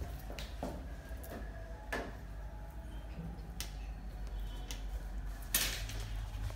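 Hands handling a chiffon scarf on a mannequin head: scattered light clicks and small metallic clinks with soft fabric rustling, and one louder rustle about five and a half seconds in. A steady low hum lies under it.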